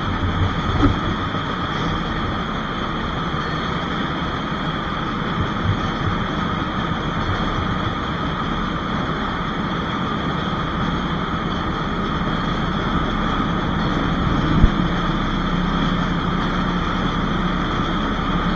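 Racing kart engine idling steadily while the kart sits stationary, muffled as heard by an onboard camera. A single short knock comes about fifteen seconds in.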